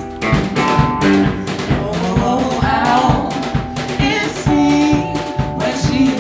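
A small band playing a song live: sung vocals over electric guitar, piano and a drum kit keeping a steady beat.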